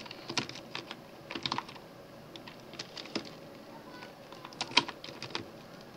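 Typing on a computer keyboard: irregular keystroke clicks in short clusters with pauses between, as a line of text is typed.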